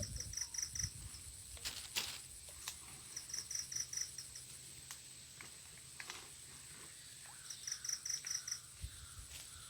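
A steady high insect drone with a repeated call of about five rapid high chirps, heard three times a few seconds apart, plus a few faint clicks.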